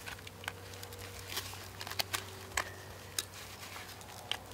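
Side-cutter snips cutting through a small metal tent eyelet, giving a series of sharp, irregular clicks as the eyelet is nipped apart.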